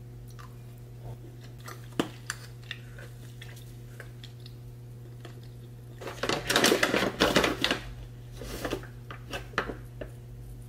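Chopsticks clicking and tapping against a plastic lunch container, then about two seconds of dense rattling as black pepper is shaken from a plastic shaker jar, followed by a few lighter clicks as salt is sprinkled over the food. A low steady hum runs underneath.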